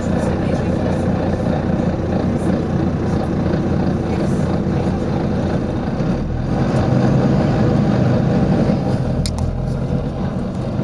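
Volvo B9TL bus's six-cylinder diesel engine running steadily, growing louder and deeper from about six seconds in, then easing off near the end.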